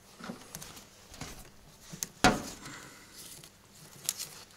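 Hands working wiring and a plastic connector under a car's hood: scattered small clicks and rustles, with one sharp knock a little over two seconds in.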